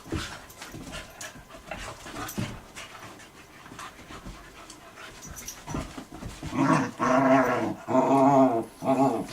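A boxer puppy and a shepherd puppy play-fighting: scuffling and clicking, then from about two-thirds of the way in, a run of loud, drawn-out, wavering dog vocalisations.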